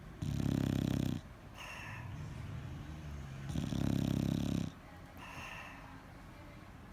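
A bulldog snoring: two loud, rattling snores, each about a second long and about three and a half seconds apart, with quieter breathing sounds between them.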